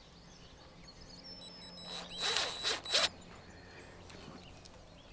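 DeWalt cordless impact driver running briefly about two seconds in, with a high motor whine, as it drives a screw through a stack of washers into a wooden fence post.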